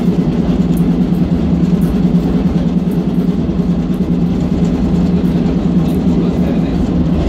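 Diesel locomotive running steadily at speed, heard from inside the cab: a constant engine drone with a low rumble underneath.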